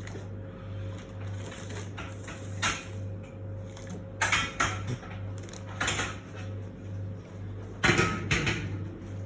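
Hard kitchen items clattering and knocking against each other, with a few sharp knocks and a louder bout of clatter near the end, over a steady low pulsing hum.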